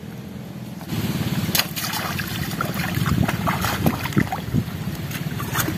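Water rushing along a narrow concrete irrigation channel, a steady noisy wash that gets louder about a second in, with scattered short clicks and knocks over it.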